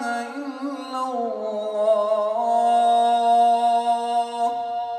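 A man's solo voice in ornamented Arabic religious chant, sung into a hand microphone, sliding through melismatic turns and then holding one long steady note from about halfway through until shortly before the end.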